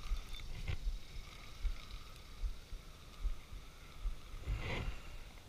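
Wind rumbling on the microphone, with a light click under a second in and a short rustle of handling about four and a half seconds in.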